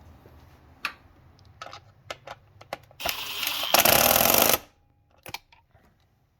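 Hand tools on the engine while the fuel line bracket is fastened: a few sharp metallic clicks, then about a second and a half of loud, rapid clicking from a socket ratchet driving the bracket bolt.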